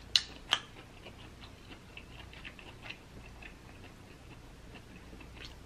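Fingers digging crab meat out of a glass bowl: two sharp clicks about a quarter and half a second in, then a run of faint small clicks.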